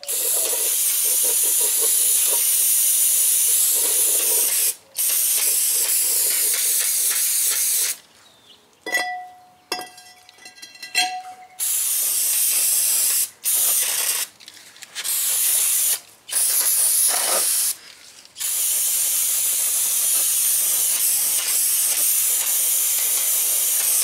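Aerosol brake parts cleaner hissing from a spray can onto a new brake drum, in long bursts of several seconds with short breaks between them. A few short clinks with a brief ringing tone come about nine to eleven seconds in.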